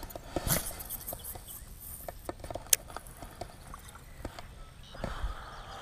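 Light, irregular clicks and ticks from a baitcasting rod and reel during a cast and retrieve, with a brief rushing sound about half a second in.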